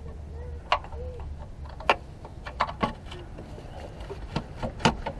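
Irregular sharp clicks and knocks of hand tools on a starter motor's mounting bolts, about eight strikes at uneven intervals over a low steady hum.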